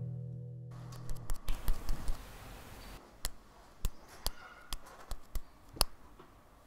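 The last of a guitar chord dies away, then a short stretch of scuffing and a series of light taps, about two a second: sound effects for a small figure climbing a brick wall.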